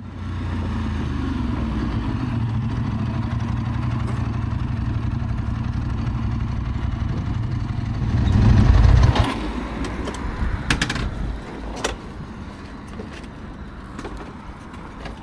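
Ducati 748SP's 90-degree V-twin engine running steadily at low revs, rising in a brief rev about eight seconds in, then cutting out abruptly a second later. A few sharp clicks follow in the quiet.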